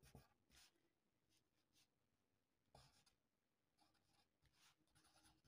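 Faint pencil scratching on paper as words are handwritten, in short strokes, with a pause of about two seconds in the middle.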